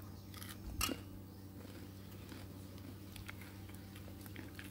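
A single crunch of a crispy-battered fried banana fritter about a second in, then a few faint small crackles, over a low steady hum.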